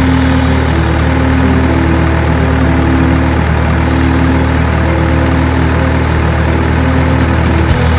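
A heavy engine idling with a steady low drone, with short held tones coming and going above it.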